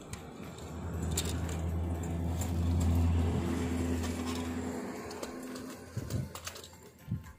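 A motor vehicle drives past: its engine hum grows louder over a couple of seconds, then fades away. A few light clicks and knocks come near the end.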